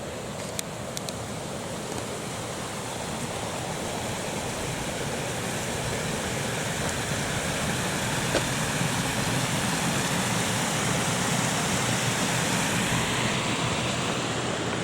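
Steady rushing noise that grows gradually louder over about ten seconds, then eases slightly near the end.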